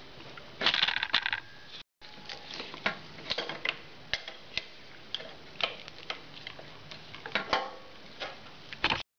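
Adjustable steel wrench clinking and scraping against a motorcycle's front fork top nut: a scattered run of sharp metal clicks and knocks, with a longer rattle about a second in.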